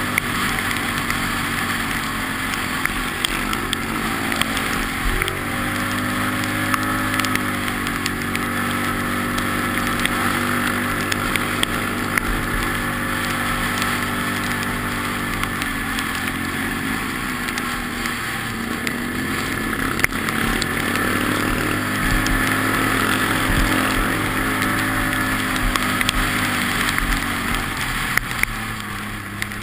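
Quad bike (ATV) engine running under way, its pitch dipping and climbing several times as the throttle is eased and opened, with a few sharp knocks from the ride.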